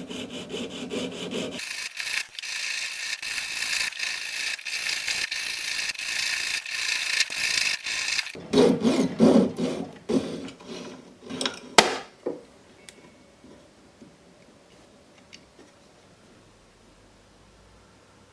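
Hand tool rasping back and forth on sterling silver, a steady run of strokes with a bright, high rasp, then a few slower, lower strokes and one sharp click. The work stops about twelve seconds in.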